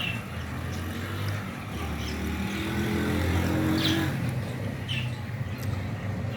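A motor vehicle's engine running on the road, growing louder and rising in pitch to a peak about four seconds in, then easing off as it passes. A few short high chirps are heard over it.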